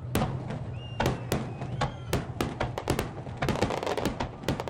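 Aerial fireworks shells bursting: a string of sharp bangs at irregular intervals, coming thicker and running together into crackling in the last second or so.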